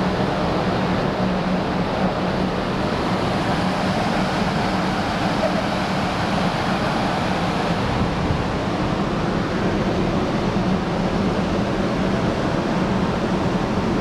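Steady running noise of a ferry heard from its open deck: an even rushing sound with a low hum beneath it.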